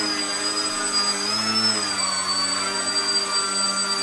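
Battery-powered electric motor and propeller of an indoor foam 3D RC airplane held in a hover, a steady high whine that wavers slightly in pitch as the throttle is worked to hold the plane up.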